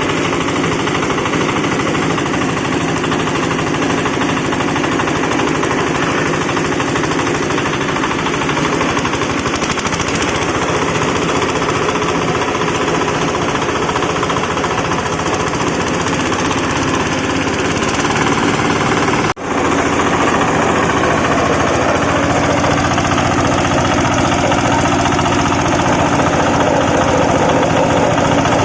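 Wood-shaving machine for making chicken-litter shavings running steadily with a loud, dense, rapid pulsing clatter. The sound breaks off for an instant about two-thirds of the way in.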